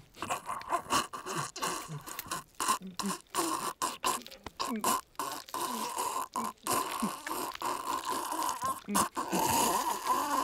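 Guttural grunting and growling in rapid, choppy bursts, over a steady high tone.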